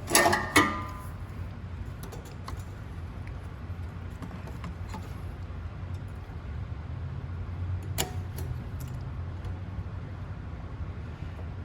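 Small metal parts clinking and clattering as a choke linkage is fitted to a walk-behind mower's carburetor: a loud jangly clatter at the start, then scattered light clicks and one sharp click about eight seconds in, over a steady low hum.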